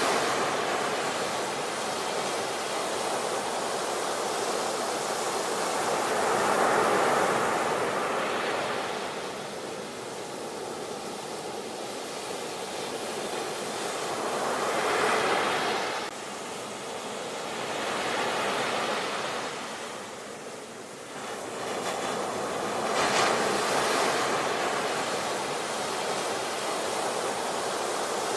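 Ocean surf breaking and washing up a sandy beach: a continuous rushing wash that swells with each wave, about every eight seconds.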